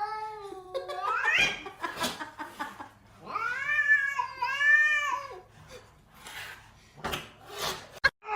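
A cat meowing and yowling: a drawn-out call that rises in pitch at its end, then two long meows back to back. A few short knocks near the end.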